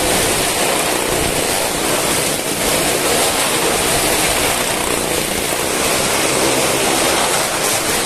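Car and motorcycle engines running hard as they circle the vertical wall of a well-of-death ride, a loud continuous din of several engines together.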